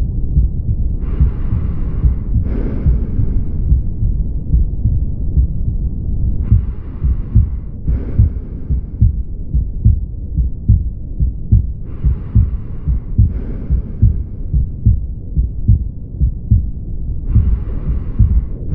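Stethoscope recording of a mitral stenosis heart: a rapid run of low, dull beats with a low rumble between them. A pair of short hissing sounds comes back about every five and a half seconds.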